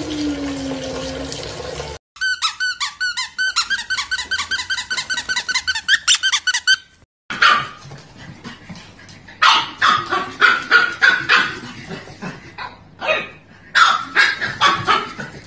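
Tap water running briefly, then a small puppy's high-pitched squeaky yelps in a fast even run, about five a second. After a break these give way to irregular clusters of high-pitched yapping barks.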